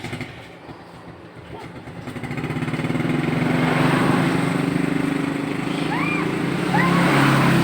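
An engine running, growing louder over about two seconds and then holding steady, with two short chirps near the end.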